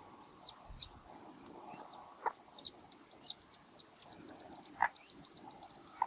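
Chicks peeping: short high peeps, each falling in pitch, a few at first and then a fast run of them from about halfway through. A few short sharp sounds in between.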